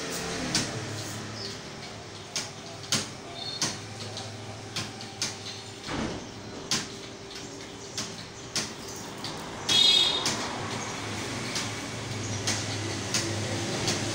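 Irregular sharp clicks of computer keys and mouse, one or two a second, over a steady hum of a fan or air conditioner, with one brief louder high-pitched squeak about ten seconds in.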